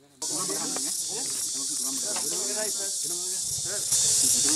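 Steady high-pitched hiss of insects in the bush, starting suddenly just after the start and growing louder near the end, under people talking.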